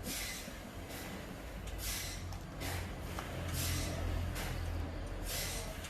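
Sawmill machinery running with a steady low hum that swells in the middle, broken every second or two by short hissing bursts.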